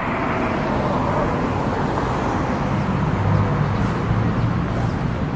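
Steady roadside traffic noise from vehicles passing on the road, with a low rumble that swells about three seconds in.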